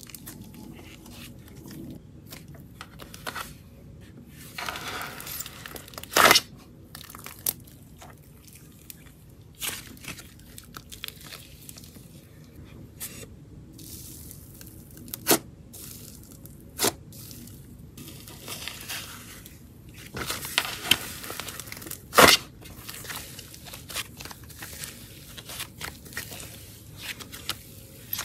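Thick wood glue slime being kneaded, folded and pressed by hand: soft squishing and crackling as it stretches and folds, broken by several sharp pops, the loudest about six seconds in and about twenty-two seconds in.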